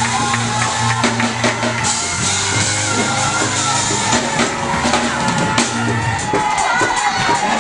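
Live gospel band playing an up-tempo praise break, drum kit hitting hard over sustained bass notes, with congregation voices shouting over the music.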